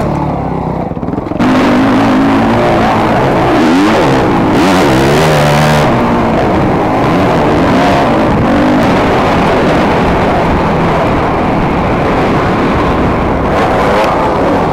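Motocross bike engine revving up and down hard under racing load, with heavy wind and track noise. It gets suddenly louder about a second and a half in.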